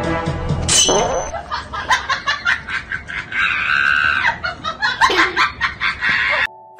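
Music, then from about a second in a run of short rhythmic laughing sounds with a long high squeal in the middle. It all cuts off sharply near the end.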